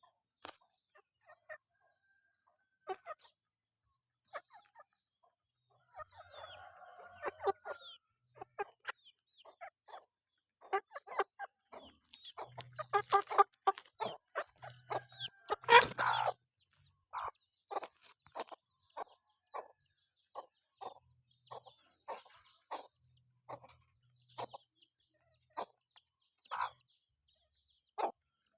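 Chickens clucking as they forage: many short clucks at irregular intervals, busiest around the middle, with one louder burst a little past halfway.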